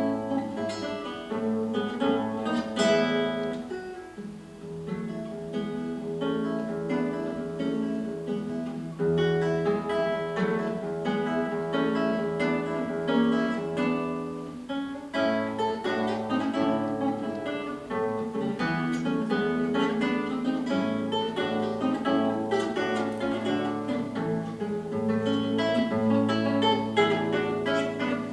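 A plucked string instrument playing a solo piece: runs of plucked notes over held bass notes and strummed chords, with a brief softer passage about four seconds in.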